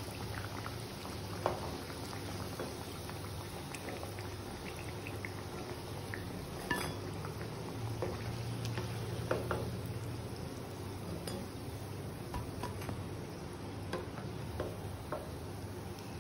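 Bread doughnuts frying in hot oil in a pan, a steady sizzle, with scattered clicks and scrapes of a steel slotted spoon against the pan as the doughnuts are lifted out.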